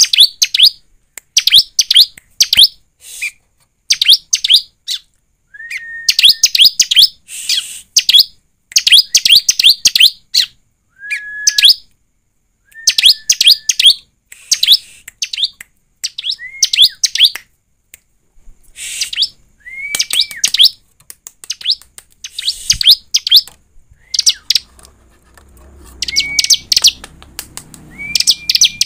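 Bar-winged prinia (ciblek) singing vigorously: loud bursts of rapid, sharp, high chirps with short pauses between them. Now and then a short, level whistle sounds lower in pitch.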